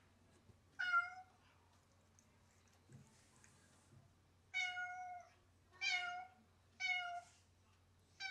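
A domestic cat meowing: one loud meow about a second in, then four more meows in a row from about four and a half seconds on.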